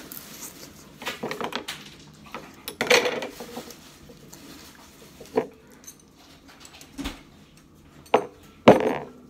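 Utensils clattering: chopsticks and scissors knocking against a bowl and a tabletop in a series of separate clinks and knocks, the loudest about 3 s in and near the end.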